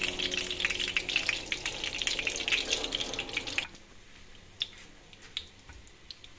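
Batter-coated courgette flowers frying in a pan of hot oil, crackling and sizzling densely. A little over three seconds in, the sound drops abruptly to a much fainter sizzle with a few soft pops.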